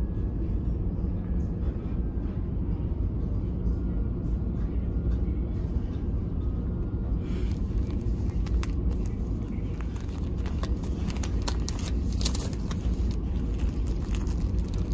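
Steady low rumble of a ferry's engines running underway. From about halfway, clear plastic packaging crinkles and crackles as hands handle it.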